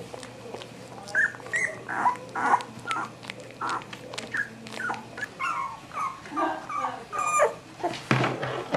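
A very young Cavalier King Charles Spaniel puppy whimpering and squeaking in a steady string of short, high calls, about two to three a second. There is a brief clatter near the end.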